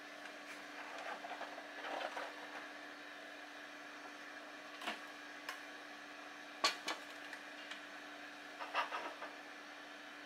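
A few light clicks and knocks as an aluminium mess tin and its wire handles are handled on a wooden board, over a steady low hum.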